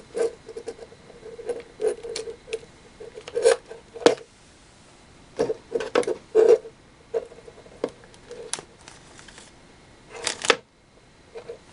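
Hands handling plastic electrical parts on a wooden table: irregular clicks, taps and knocks as a lamp socket, plug and screw terminal block are turned, fitted and set down, with two louder knocks.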